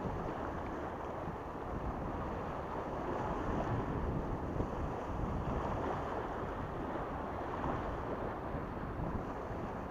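Small sea waves washing and splashing against breakwater rocks, with wind buffeting the microphone in a steady low rumble.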